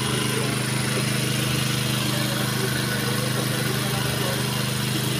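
A steady low mechanical drone that holds an even pitch and level throughout, with faint crowd sounds beneath it.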